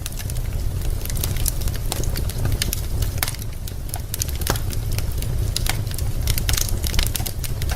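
Burning wood logs crackling: many sharp pops and snaps, several a second, over a steady low rumble.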